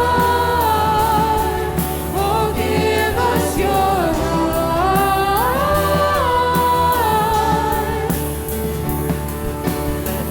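Live worship band music with singing: voices holding and sliding between long notes over bass and drums, the band easing off near the end.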